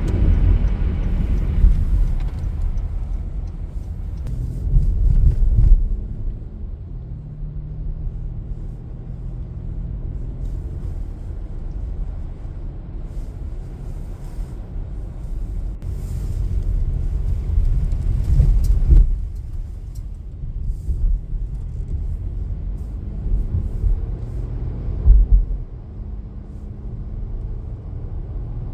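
Car driving: steady low road and engine rumble, with a few short louder thumps, about five seconds in, near nineteen seconds and near twenty-five seconds.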